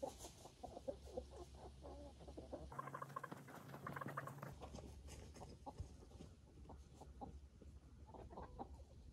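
Chickens clucking quietly in a steady run of short clucks, briefly higher and brighter about three to four seconds in.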